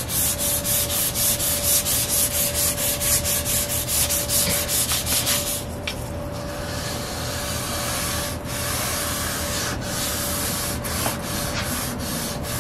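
Fine-grit sandpaper disc rubbed back and forth by hand over a shellac-coated rosewood veneer, flatting the finish to level out brush strokes. The first half is quick, even back-and-forth strokes; after about six seconds it turns to a steadier, continuous scrubbing.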